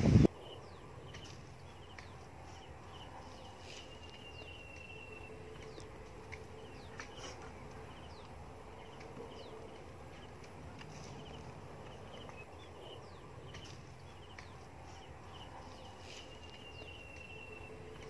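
Faint rural outdoor ambience: small birds calling in short chirping series, with a thin held whistle heard twice, over a faint steady hum.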